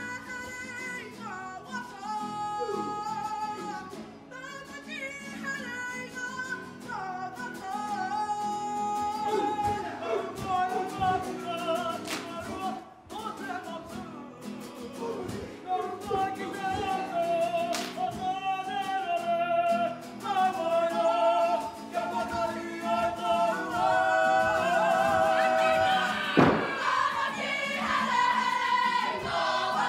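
Kapa haka group of men and women singing a Māori waiata together in several parts, growing louder near the end.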